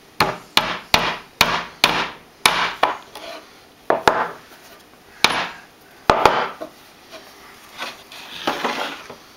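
Claw hammer tapping the small nails of a brass sawtooth picture hanger into the wooden back of a frame: about ten sharp taps, five quick ones in the first two seconds, then a few spaced further apart. Near the end the wooden frame scrapes across the tabletop as it is turned.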